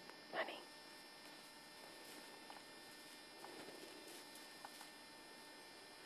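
Near silence: a faint steady electrical hum in the recording, with one short louder sound about half a second in and a few faint ticks.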